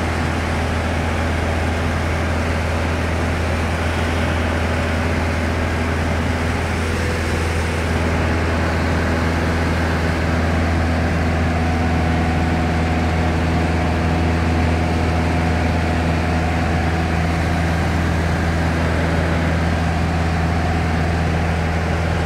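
Light touring aircraft's piston engine and propeller heard from inside the cabin: a steady, low drone in flight, its tone shifting slightly about halfway through.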